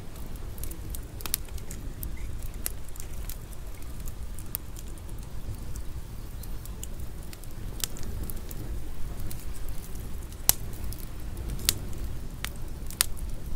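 Wood fire crackling with sparse, irregular sharp pops, the strongest about ten and a half seconds in, over a steady low rumble of wind.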